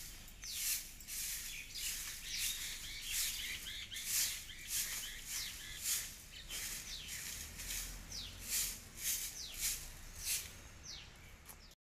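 Hand broom of thin sticks sweeping dry leaves and litter over bare soil: brisk swishing strokes, about two a second. Birds chirp in the background.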